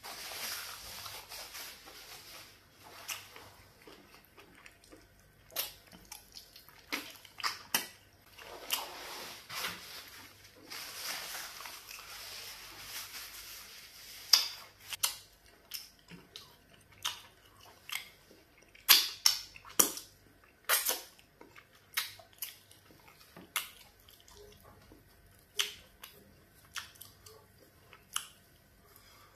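Close-up eating sounds of a person chewing meat and fufu by hand: wet chewing with sharp mouth clicks and smacks, thickest in the second half. In the first half, soft rustling hiss from a paper tissue wiped across the face.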